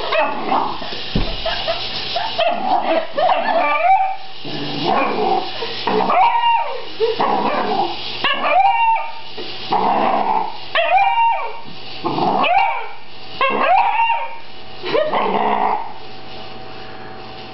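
A dog barking over and over, about one bark every second and a half, each bark rising then falling in pitch; the barking stops near the end.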